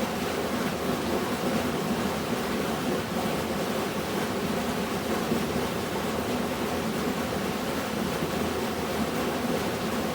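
Waterfall heard from a distance: a steady, even rush of falling water, heaviest in the low-middle range, without change or break.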